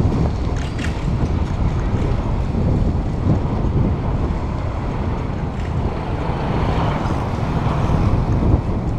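Wind buffeting the microphone of a handlebar-mounted camera on a moving bicycle: a steady low rumble of rushing air, with a few faint ticks.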